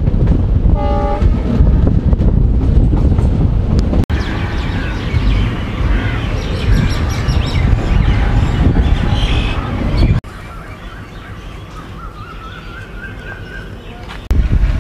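Wind on the microphone over the rumble of a moving passenger train at an open coach door. About four seconds in the sound changes abruptly to a quieter train rumble with birds chirping. Near ten seconds it drops to a much lower level with a thin rising chirp, before the loud wind and rumble come back near the end.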